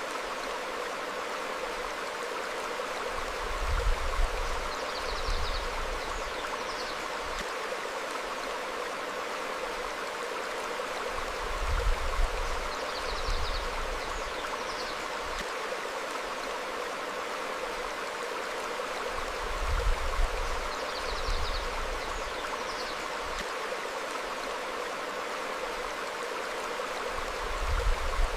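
Stream flowing over rocks, a steady rush of water, with a deeper swell about every eight seconds. Faint short bird chirps come with the swells.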